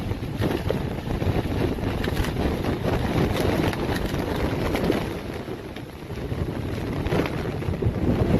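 Strong gusting wind buffeting the microphone, a rough rushing noise that swells and eases every few seconds.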